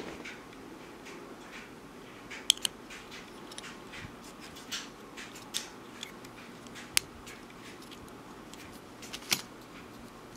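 Small metal clicks and scrapes as scissor tips and a steel split ring are worked against the crimped edge of a drilled bottle cap, about half a dozen sharp, irregular clicks with light scraping between them.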